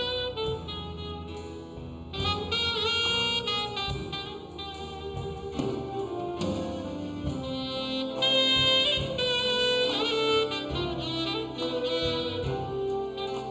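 A big band jazz ensemble playing an instrumental passage, saxophones and brass carrying held and moving melody lines over a drum kit.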